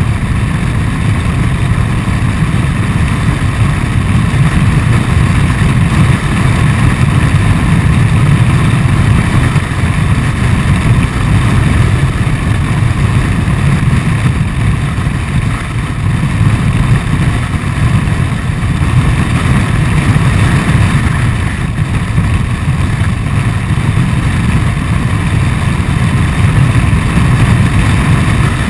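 Honda Forza 125 scooter on the move, its single-cylinder engine running steadily under heavy wind buffeting on the camera's microphone. The sound holds at an even level throughout.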